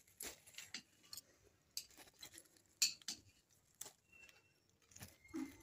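Chilli plant leaves rustling, with faint, irregular snaps and clicks as green chillies are picked off the stems by hand.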